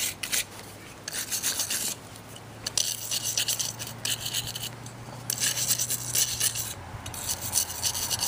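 Wire brush scrubbing slag off a freshly exothermic-welded copper ground-rod and cable joint: quick back-and-forth scratching strokes in runs broken by short pauses.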